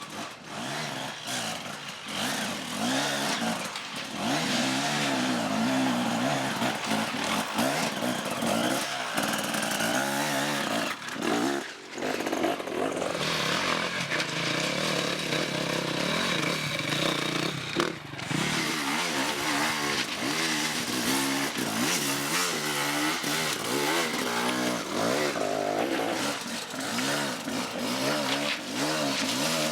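Off-road motorcycle engine revving, its pitch rising and falling over and over as the throttle opens and closes, with a few brief dips in the sound.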